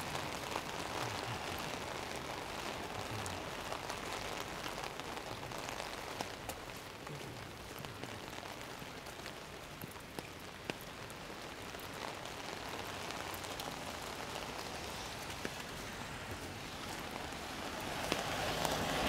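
Heavy rain falling steadily on an umbrella, an even hiss dotted with sharp individual drop hits, growing louder near the end.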